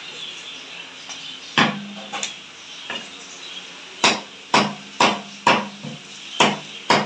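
A heavy fish knife slicing through a fish fillet, then chopping down through it into a wooden log chopping block: a few separate knocks, then a steady run of about two chops a second from about four seconds in.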